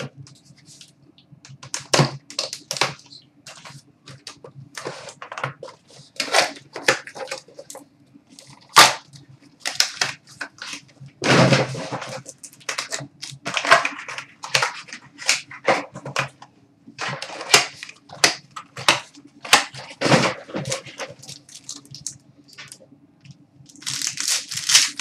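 Trading card box and pack being opened and the cards handled: irregular rustling, crinkling and clicks of cardboard, wrapper and card stock, in quick short bursts of uneven loudness.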